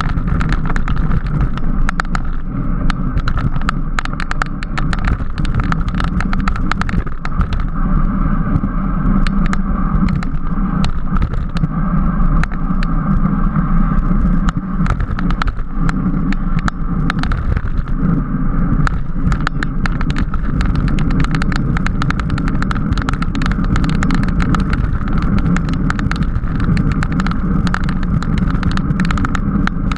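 Racing bicycle at speed: steady tyre, road and wind noise with a constant irregular patter of clicks and rattles.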